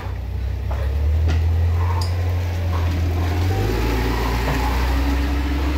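Steady low mechanical rumble, with a couple of light knocks about a second and two seconds in as a person drops to the wooden floor of an empty trailer.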